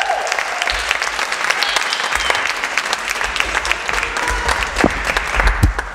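Audience applauding, dense steady clapping.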